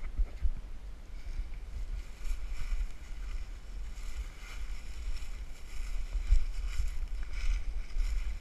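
Wind buffeting an action camera's microphone: an uneven low rumble that rises and falls, with faint rustling hiss above it.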